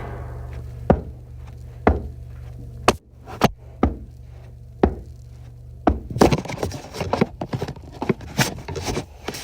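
Sound effects made by hand: single sharp knocks or thuds about a second apart, then a quicker, clattering run of knocks from about six seconds in, over a low steady hum.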